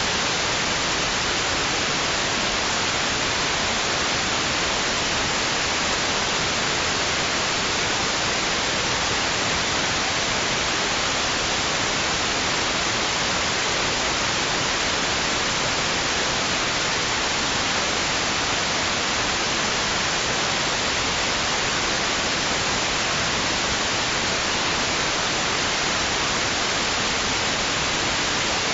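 Steady white noise: an even, unchanging hiss, brightest in the upper range, with no rise and fall of waves.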